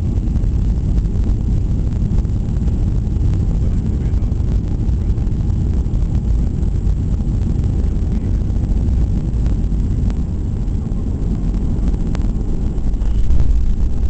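Steady low rumble of a Boeing 737-800's engines and airflow heard inside the cabin during the landing, growing louder near the end.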